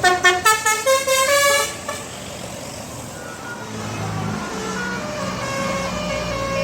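Indonesian bus 'telolet' musical air horn: a loud, rapid run of short notes for about two seconds, then a softer melody of longer notes over the low rumble of a bus engine.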